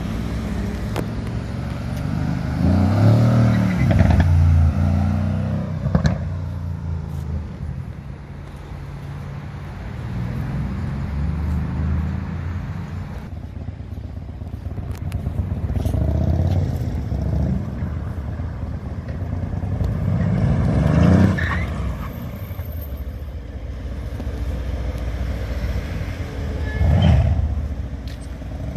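Performance car engines and exhausts revving and accelerating past, each pass rising and falling in pitch and loudness. The loudest pass comes a few seconds in, two more build near the two-thirds mark and near the end, with steady traffic noise between.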